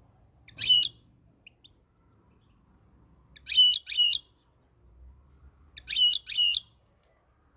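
European goldfinch calling in three short bursts of quick, high twittering notes, each burst about half a second long and a few seconds apart.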